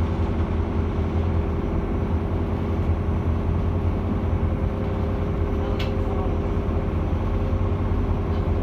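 Steady low drone of a cruise boat's engine running under way, heard on board, with one brief click about six seconds in.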